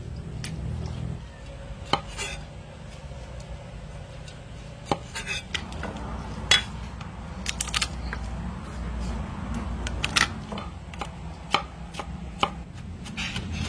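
Kitchen knife cutting on a thick wooden chopping board: irregular sharp knocks as small calamansi are halved and, later, garlic cloves are sliced with a cleaver-like blade. A steady low background noise runs underneath.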